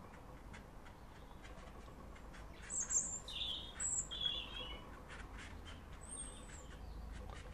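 A small songbird outside giving a few short, high chirps about three to four and a half seconds in, and one more brief call near six seconds.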